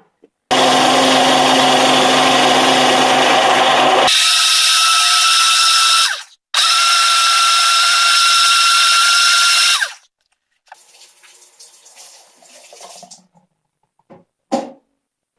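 Countertop blender motor blending a yogurt smoothie in pulses. Its pitch jumps higher about four seconds in, it stops briefly, runs again for about three seconds, then winds down with a falling whine. Faint rattling and a single click follow.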